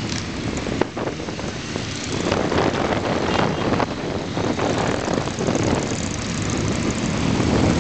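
Motorcycle engines running while riding in a group, led by the camera bike's own Suzuki Bandit, mixed with wind noise on the microphone. The engine sound swells a little at about two seconds in and again near the end.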